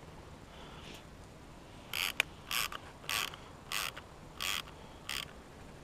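Fishing reel ratcheting in six short, evenly spaced bursts, with one sharp click near the start of them.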